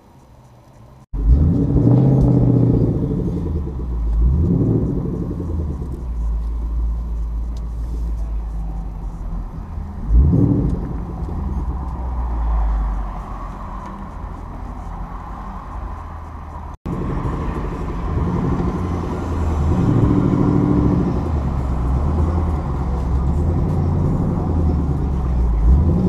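2018 Ford Mustang GT's 5.0 V8 with a Roush axle-back exhaust starting about a second in, then idling and rolling at low speed with a deep rumble and several brief rises in revs.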